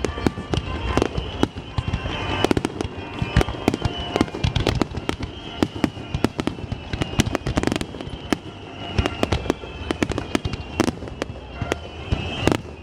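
Aerial fireworks display: shells bursting in quick succession, a dense run of sharp bangs and crackles, with a high wavering tone over them.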